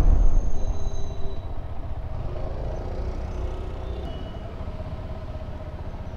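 KTM 390 Adventure's single-cylinder engine and riding noise dying away steadily as the motorcycle slows and pulls up to a stop.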